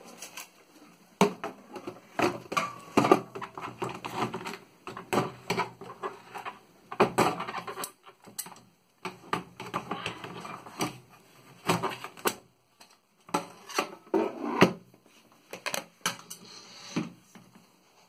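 A 1936 Corona Standard portable typewriter being handled and set into its wooden carrying case, and the case closed: irregular knocks, clunks and clicks of metal and wood, some with a short rattle, in clusters with brief pauses between them.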